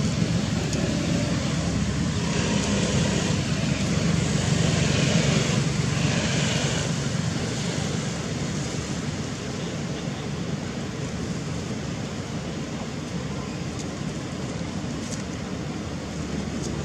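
Steady low rumbling background noise with a hum, joined by a higher hiss that comes and goes between about two and seven seconds in.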